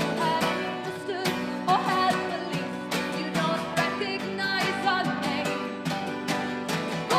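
Live acoustic band music: guitars strummed in a steady rhythm with a melody line bending above them, between sung verses.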